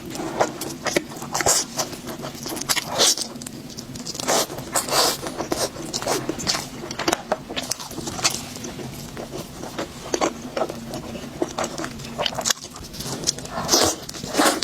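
Close-miked eating: chewing and biting of grilled food, sharp wet mouth clicks and smacks at irregular intervals.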